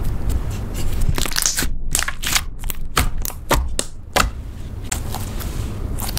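Hands squishing and poking a glossy slime, making an irregular run of sharp wet clicks and pops as air trapped in the slime is squeezed out, over a low squelching handling noise.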